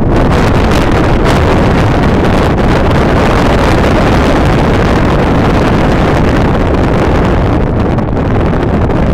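Wind buffeting the microphone: a loud, steady rushing noise with no distinct tones.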